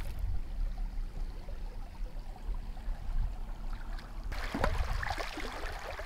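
Muddy water rushing and lapping around a magnet-fishing rope, coming in about four seconds in with a few light knocks, after a faint low rumble.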